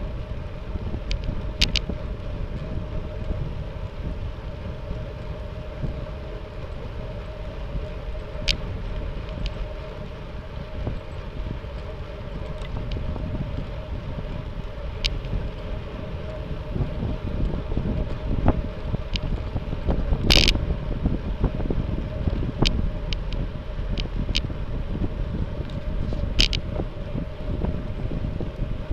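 Wind rushing over the microphone of a camera riding along on a bicycle, a steady low rumble, with scattered sharp clicks and rattles, the loudest about twenty seconds in.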